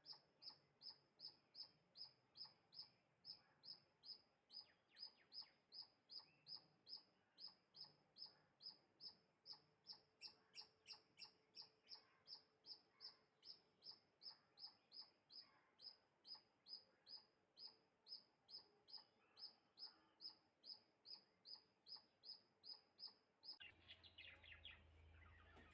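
A bird's short, high chirp repeated evenly about twice a second, faint. Near the end the chirping stops and a different, lower and noisier sound takes over.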